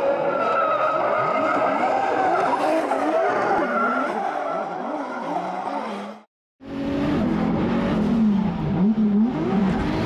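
Two drift cars sliding in tandem, their engines revving up and down under tyre squeal. After a brief silent cut about six seconds in, a drift car's engine revs hard, rising and falling repeatedly as the throttle is worked.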